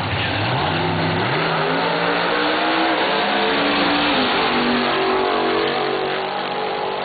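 Two drag-race cars launching off the line and accelerating down the strip. The engine pitch climbs steadily, drops back at each of several gear changes, and fades a little as the cars pull away.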